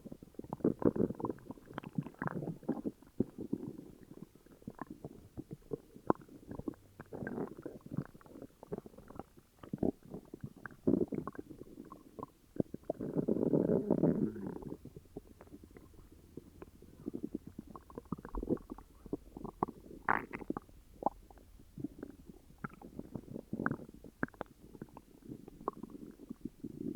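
Human stomach growling and gurgling from an upset stomach: a quick, irregular run of bubbly gurgles and pops, with one longer growl lasting about a second and a half near the middle.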